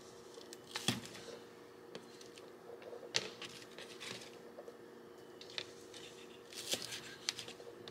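Kitchen knife cutting through a raw onion on a paper plate: a handful of faint, short cuts at irregular intervals, over a faint steady hum.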